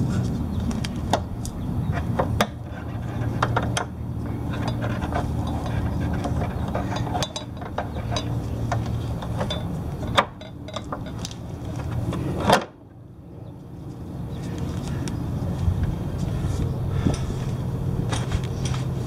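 Small metal clicks and clinks from hand work on a scooter's front axle and wheel hub parts, with a sharp click about twelve seconds in, over a steady low hum.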